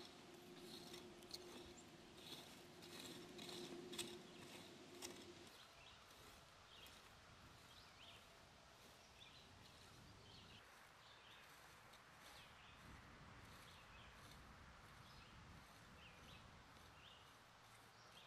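Near silence: faint outdoor background. There are soft scattered ticks and a low hum for the first five seconds or so, then faint short chirps every second or so.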